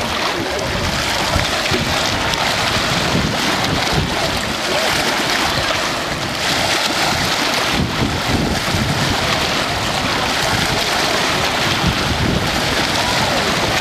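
Wind buffeting the microphone, with low rumbling gusts, over a steady wash of choppy water and waves.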